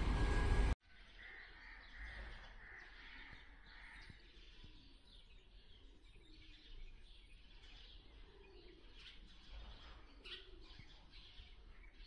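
Loud road traffic noise that cuts off abruptly under a second in. It is followed by a faint outdoor ambience with small birds chirping now and then, with a few closer chirps about ten seconds in.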